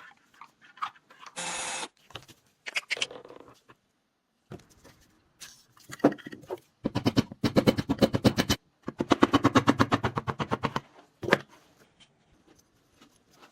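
Small metal parts being handled and worked during a revolver restoration: scattered sharp clicks, a short hiss about a second and a half in, and two runs of rapid, evenly spaced ticking, each lasting about two seconds.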